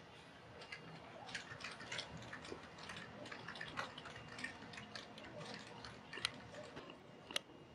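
Faint, irregular light clicks and ticks, several a second, with two sharper clicks near the end.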